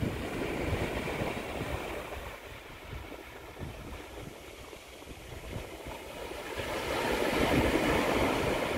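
Small waves breaking and washing up a shingle beach, with wind buffeting the microphone. The surf gets louder in the last few seconds.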